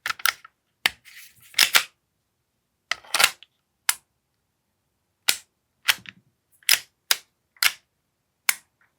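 Action Army AAP-01 gas blowback airsoft pistol test-firing: about a dozen sharp snapping shots at uneven intervals, a couple of them trailing a short hiss. The test shows no improvement in the fault under repair, which the owner next suspects is down to the gas magazine.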